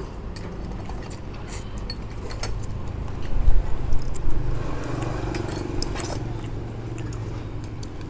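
Metal spoons, chopsticks and a small stainless steel condiment container clinking against ceramic bowls as people eat noodles, with a louder run of clatter about three and a half seconds in. A steady low vehicle hum runs underneath.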